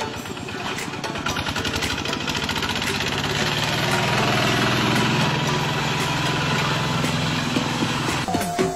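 Engine of a two-wheel walking tractor running steadily under load as it cuts a ditch, a fast even chugging that grows louder over the first few seconds.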